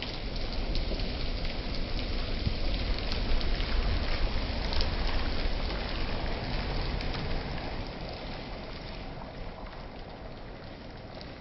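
Rain falling on flooded concrete and puddles, a dense patter of drops with a low rumble beneath; it eases a little after about eight seconds.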